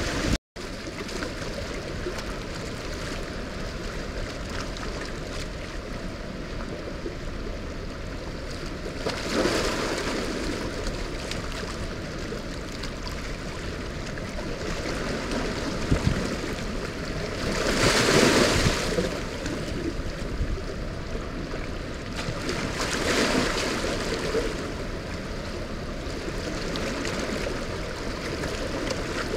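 Rushing water of a dam tailrace: high floodwater released from the dam running fast past a rocky bank. A steady rushing noise that swells for a moment a few times, loudest about eighteen seconds in, with a brief gap in the sound about half a second in.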